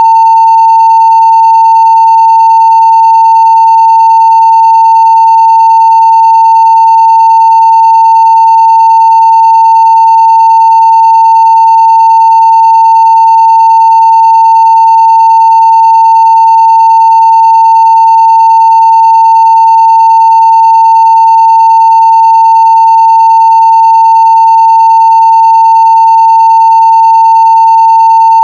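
Steady 900 Hz sine-wave test tone at full scale (0 dB), unbroken and unchanging in pitch and level, with faint higher overtones.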